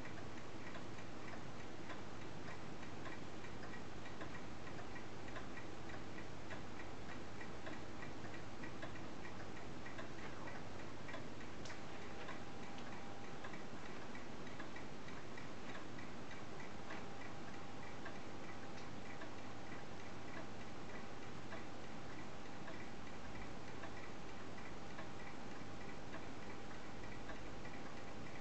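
Kienzle pendulum wall clock ticking steadily, an even tick-tock from its escapement.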